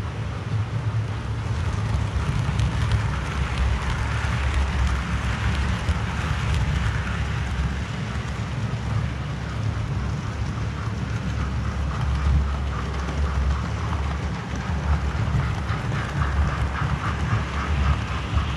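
Model railway trains running on the layout: the steady low hum of the locomotive motors with a rattling of wheels on the rails. Near the end a train passes close with a quick, even run of clicks.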